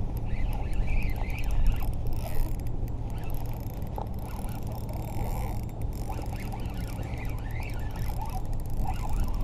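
Shimano Nexave spinning reel cranked steadily while fighting a hooked little tunny on light line. A steady low rumble runs under it, with faint short squeaks now and then.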